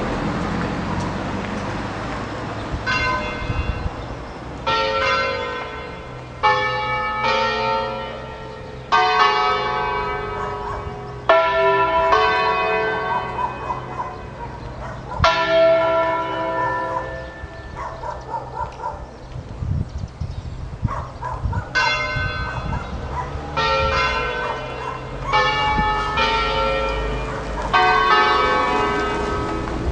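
A peal of five Ambrosian-system church bells, tuned E3, F#3, G#3, A3 and B3, ringing in quick clusters of strokes. The tones hang on between the clusters. The strokes thin out for a few seconds past the middle, then pick up again.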